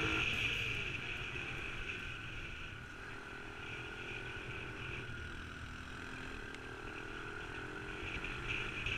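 Small four-stroke single-cylinder mini trail bike engine running under way on a dirt road, its pitch drifting slowly up and down; a little louder at first, easing after about two seconds.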